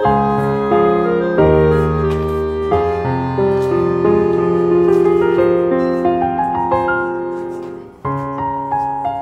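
Background piano music: chords and melody notes struck and left to fade, with a brief drop in level and a fresh chord about eight seconds in.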